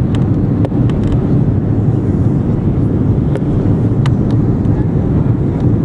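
Steady cabin roar of an Airbus A330-300 on final approach, engines and airflow heard from inside the passenger cabin, with a few faint clicks.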